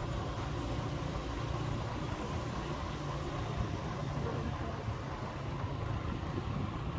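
Motor scooter's small engine running steadily while riding along, with wind and road noise, heard from the pillion seat.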